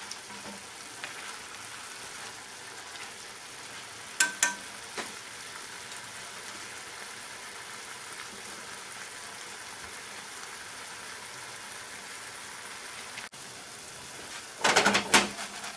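Pot of daikon, carrot and fried fish balls simmering in broth that has cooked down low, giving a steady bubbling sizzle. A couple of sharp clicks come about four seconds in and a short clatter near the end.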